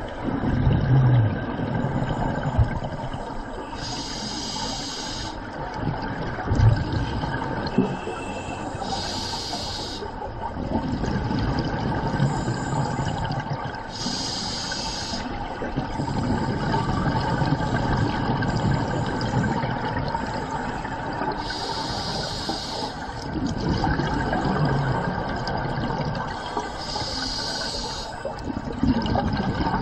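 Scuba regulator breathing heard underwater: a hiss through the demand valve on each inhale, about every five seconds (five times), alternating with a low bubbling rumble of exhaled bubbles.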